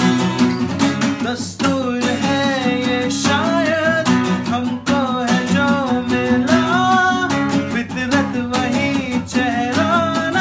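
Two acoustic guitars strummed and picked together while a man sings the melody.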